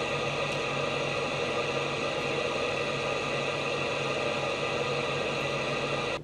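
Steady hiss and hum of receiver static from the speaker of a Cobra 29 CB radio with no station coming in, cutting off suddenly at the very end.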